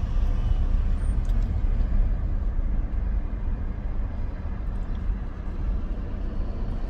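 Steady low rumble of a car's engine and tyres as it creeps forward at low speed, heard from inside the cabin with the driver's window open.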